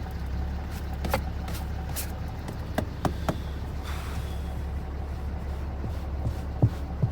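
Diesel truck engine idling steadily, with a few light knocks and a brief scrape of debris being cleaned out about four seconds in.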